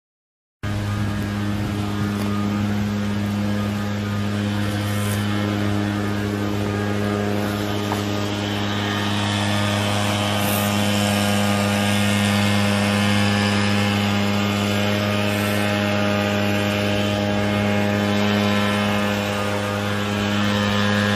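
A steady low mechanical hum with strong, evenly spaced overtones, like a machine or engine running without change; it starts abruptly about half a second in.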